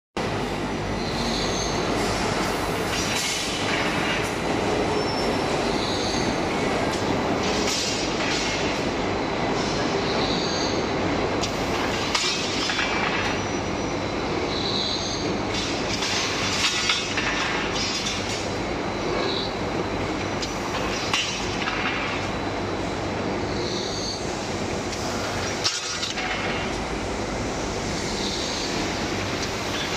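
Stainless steel rod chamfering machine running: steady mechanical noise of metal rods and rollers, with a brief high-pitched sound recurring every two to three seconds and a burst of clatter every four to five seconds.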